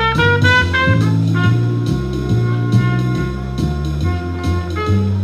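Jazz music with brass horns over drums and a bass line that steps from note to note.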